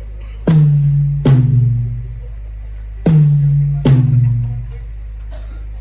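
Drum beat with heavy bass played through a large 8,000-watt sound system during a sound check: four deep, ringing hits in two pairs, the hits in each pair under a second apart, over a steady low hum.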